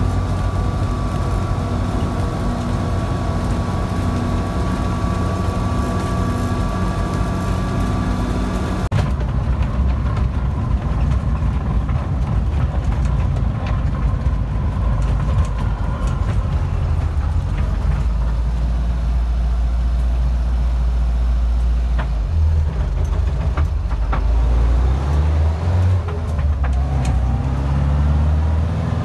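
Steyr-Puch Pinzgauer 710M army truck on the move, its air-cooled 2.5-litre inline-four running steadily with a whine heard in the cab. About nine seconds in, the sound changes abruptly to a deeper, uneven rumble with occasional knocks.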